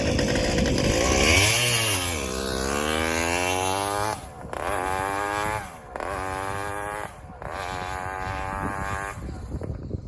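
Two-stroke chainsaw engine on a motorized shifter bicycle, fitted with an expansion chamber, revving up in four rising climbs with a short throttle cut between each, as it is shifted up through the gears. The engine drops away near the end.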